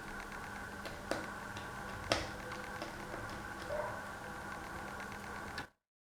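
A few light clicks and taps of a small screwdriver working the laptop screen's corner screws, two of them sharper about a second and two seconds in, over a steady electrical hum. The sound cuts off abruptly near the end.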